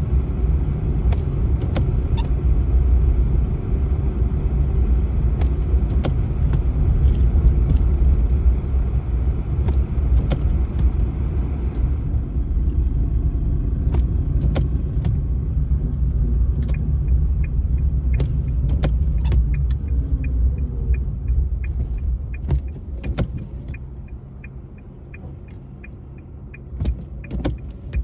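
Car cabin noise while driving: a steady low rumble of engine and tyres that eases off about three-quarters of the way through as the car slows. From a little past halfway, a regular ticking of about two a second runs alongside, with a few scattered knocks.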